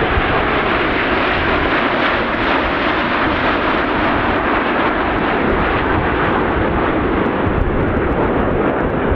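Formation of CT-114 Tutor jets, each with a single small turbojet, flying overhead: a steady, loud jet engine noise with no breaks or sharp changes.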